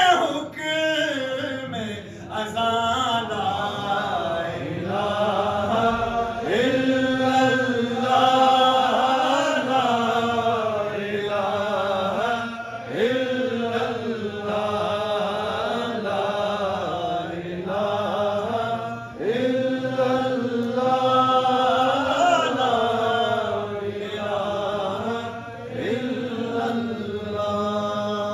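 A man's voice chanting in long held notes that glide up and down, carrying on almost without a break.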